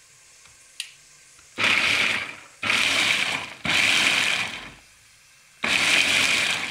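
Electric push-top mini food chopper run in four short pulses of about a second each, its blades whirring through green chillies. Each pulse starts sharply and fades as it is released.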